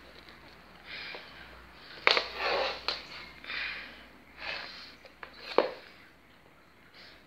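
Handling noise of licence plates, a plastic one and an aluminium one, being shifted and slid about on a wooden desk: a string of short scraping swishes with two sharp clicks among them.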